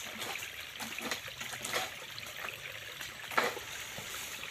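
Faint, steady trickling water, with a few soft rustles and knocks here and there.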